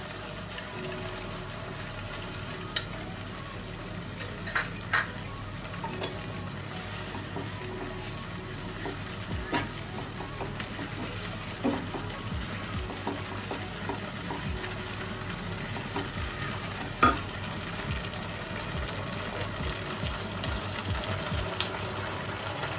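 Gravy sizzling in a non-stick wok as a plastic spatula stirs it, just after cornflour slurry has gone in. The spatula gives occasional sharp knocks and scrapes against the pan, the loudest about five seconds in and again around seventeen seconds.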